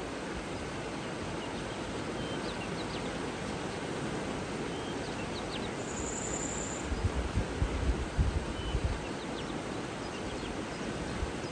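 Outdoor nature ambience: a steady rushing hiss of water or wind, with faint, brief bird chirps scattered through. A short high buzzy trill comes about six seconds in, and low wind buffets hit the microphone a few times between seven and nine seconds.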